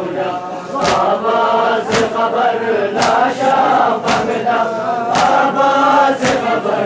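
A crowd of men chanting a mourning lament in unison, with a sharp slap about once a second from hands striking chests in matam, in time with the chant.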